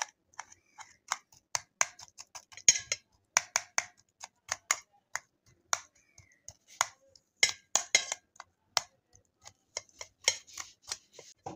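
A knife chopping cooked potato-and-capsicum curry on a stainless steel plate: sharp metal taps of the blade against the plate, irregular, several a second.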